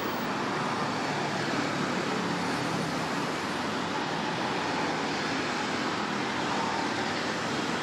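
Steady road traffic noise from cars, trucks and auto-rickshaws passing on a busy city road.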